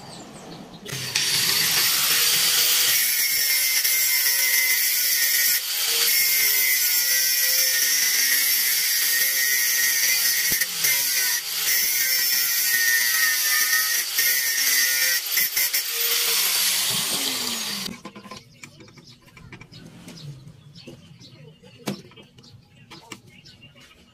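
Corded angle grinder spinning up and grinding metal held in a bench vise, a loud, steady high whine for about fifteen seconds that then winds down with falling pitch. Light clinks of hand tools follow.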